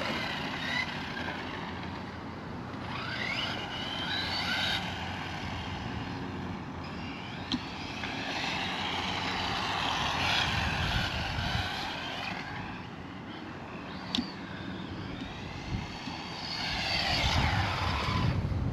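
Electric motor of an RC rally car whining as it is driven, its pitch sliding up and down with the throttle as the car speeds up and slows. Two short sharp knocks, one about midway and one near three-quarters of the way through.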